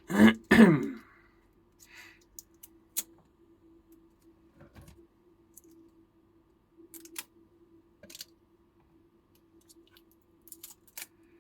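A short murmur from a person's voice right at the start. Then scattered light clicks and taps of hands handling an opened e-bike battery pack and its BMS board, over a faint steady hum.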